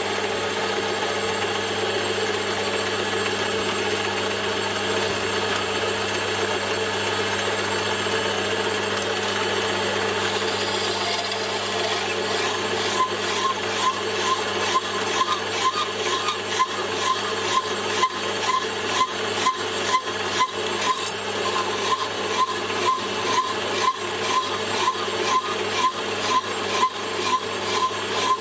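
Metal lathe running steadily. From about halfway, a hacksaw blade is worked back and forth against the spinning pin to cut a circlip groove, with an even rasping stroke about every three-quarters of a second.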